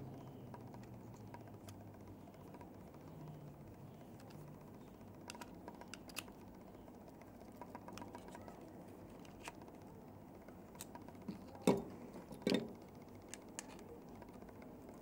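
Scattered light clicks and taps from the small plastic and metal parts of a GLO Hyper X2 heated-tobacco device being worked apart by hand. Two louder knocks come about two thirds of the way through.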